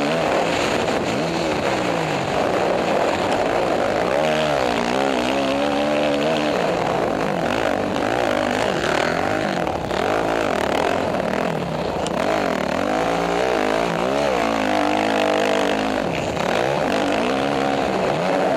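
Motocross dirt bike engine revving hard and dropping back again and again, its pitch rising and falling every second or two as the throttle is worked through the track.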